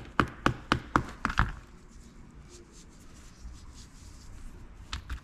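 A quick run of about seven sharp taps and clicks, then faint handling noise and two more clicks near the end: a scraper and gloved hands working a felt furnace filter clogged with waste-oil sludge.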